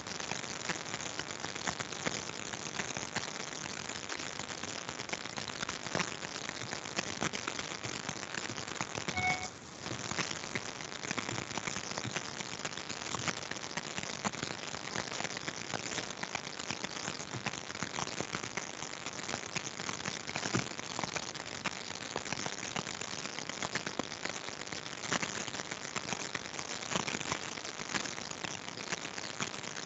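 Continuous fine crackling static on an online meeting's audio feed. The hosts suspect it comes from a general connection problem rather than their own setup. A short beep about nine seconds in.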